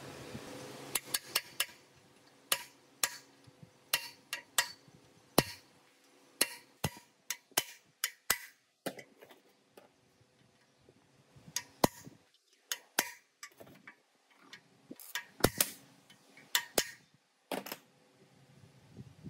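Hand tools and small metal parts clicking and tapping against each other at irregular intervals, with sharp ticks that sometimes ring briefly.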